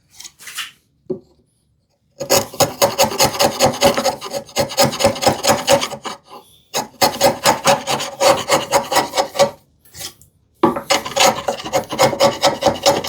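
Rapid back-and-forth strokes of a hand tool cutting into wood, in three runs of several seconds each with short pauses between them.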